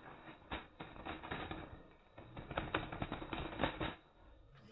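Slowed-down, irregular taps and clicks of birds fluttering and scrabbling against the bars of a hanging wooden bird-trap cage.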